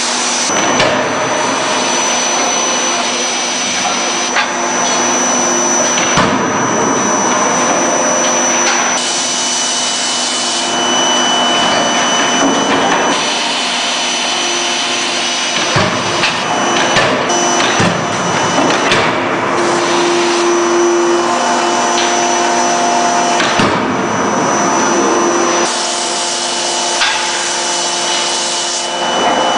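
Loud, steady hiss and hum of forge-shop machinery around a CNC hydraulic die-forging hammer at work, broken by a few sharp knocks as the hammer strikes hot workpieces in the die.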